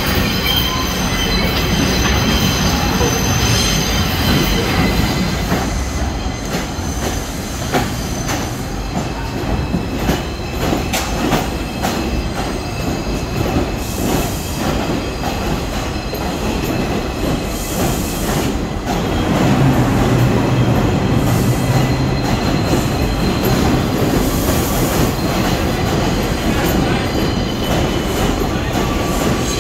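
New York City Subway train running along the platform: its steel wheels squeal with thin high tones in the first few seconds, then click over rail joints, and a louder low hum sets in about twenty seconds in.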